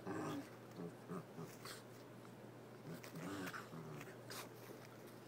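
Small dog growling in play in short grumbles while wrestling with a cat: one at the start, one about a second in and a longer one about three seconds in, with light scuffling of fur and paws between.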